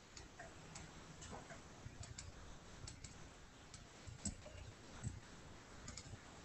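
Faint, irregular clicks of a computer mouse, with a couple of slightly louder knocks about four and five seconds in.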